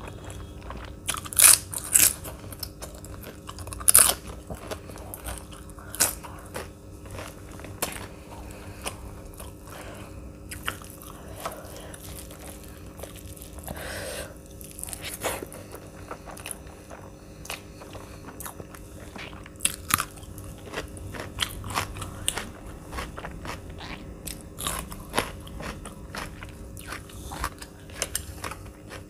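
Close-up chewing and crunching of food during a meal, with sharp crunches loudest about a second and a half in, at two seconds and at four seconds, and smaller crunches scattered after.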